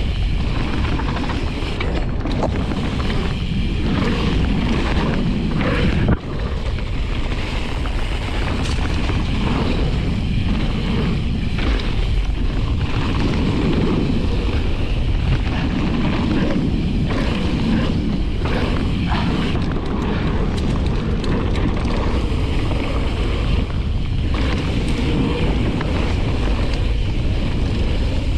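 Wind rushing over a bike-mounted action-camera microphone, with the constant rumble and rattle of a mountain bike's tyres and frame running down a dirt trail. One sharp knock comes about six seconds in.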